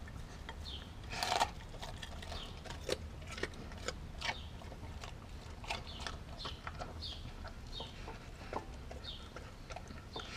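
Doberman eating raw food and carrots from a glass bowl: irregular chewing, crunching and wet smacking with sharp clicks, the loudest crunch or knock about a second in.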